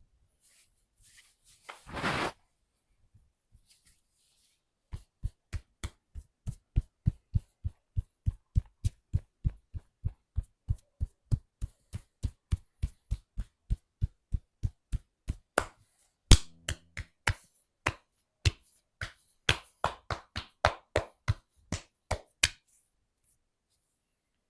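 Hands striking the body in a percussive tapping massage: a run of sharp, evenly spaced slaps at about three a second, one louder slap about sixteen seconds in, then a less regular run that stops near the end. A short rustle comes about two seconds in, before the slaps begin.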